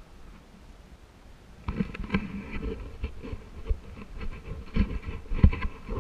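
Irregular knocking, scraping and rattling that starts suddenly about two seconds in and keeps on, movement noise from gear jostling as the recordist moves off along a sandy trail.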